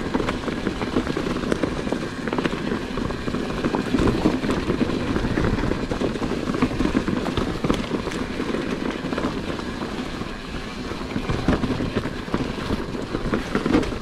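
A mountain bike running over rough ground: a steady rattling clatter of tyres, chain and frame, with many small knocks.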